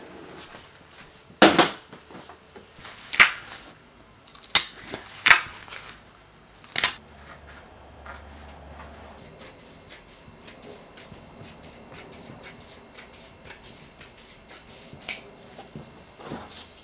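Scissors cutting along the edge of a piece of grey woven fabric. A few loud sharp clicks come in the first seven seconds, then a long run of quick small snips, and one more loud click near the end.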